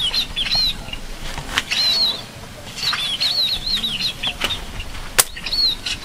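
Small birds chirping in quick runs of high, arching notes. About five seconds in there is one sharp snap as a rubber-band slingshot is shot.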